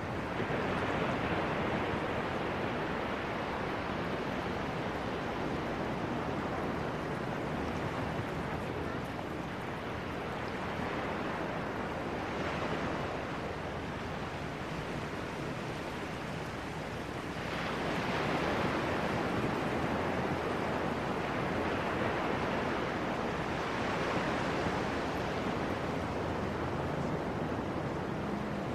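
Ocean surf: a steady wash of small waves running over shallow water and sand, swelling louder several times as each wave comes in and ebbing between them.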